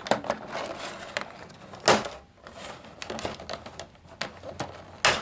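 Clear plastic blister tray crackling and clicking as the ties holding a toy robot figure and its weapons are cut and pulled free, with two louder crackles, about two seconds in and near the end.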